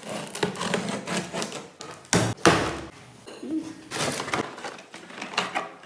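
Irregular knocking and clattering, with a loud double knock about two seconds in.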